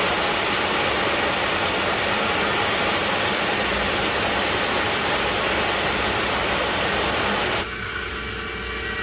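Loud, steady hiss of compressed air blowing coolant off the workpiece inside a CNC machining centre. It cuts off suddenly about seven and a half seconds in, leaving the machine's quieter steady running hum.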